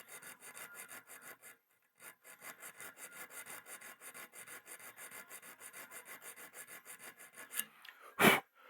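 Diamond file rasping in quick, even back-and-forth strokes across the steel cutting edge of a pair of diagonal cutters, putting a new edge on the jaws. The stroking pauses briefly about a second and a half in, and a single sharp knock sounds near the end.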